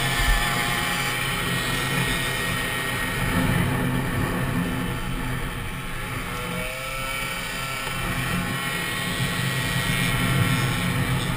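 Peugeot Fox 49cc two-stroke moped engine running flat out on a race circuit, heard from on board. The engine note eases off about six seconds in and picks up again about two seconds later.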